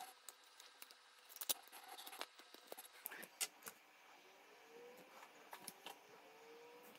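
Masking tape being handled and pressed onto the edges of a phone: faint scattered crinkles and clicks of tape and fingertips against the phone's frame.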